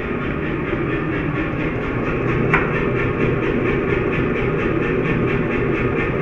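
Forge running with a steady roar and a fast regular pulse, with one sharp metallic clink about two and a half seconds in.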